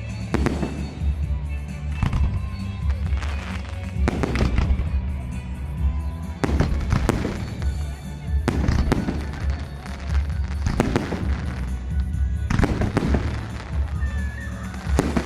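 Fireworks display: aerial shells bursting one after another, about a dozen sharp bangs at uneven intervals of roughly one to two seconds, with background music playing underneath.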